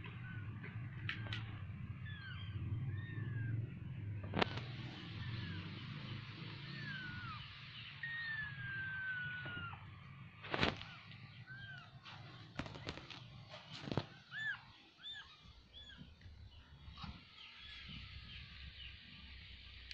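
Newborn kittens mewing: many short, high calls that rise and fall, and one longer falling call about eight seconds in. A few sharp knocks come through as well.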